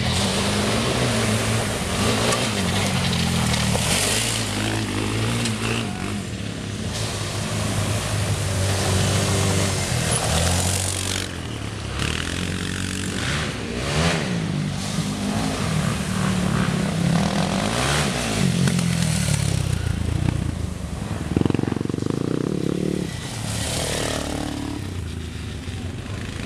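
Quad bike (ATV) engine running while it is ridden along a track, its pitch rising and falling with the throttle.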